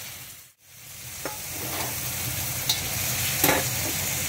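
Shrimp sizzling in hot oil as they are stir-fried in a pan, with a few sharp clinks of the spatula against the pan. The sizzle briefly drops out about half a second in, then returns.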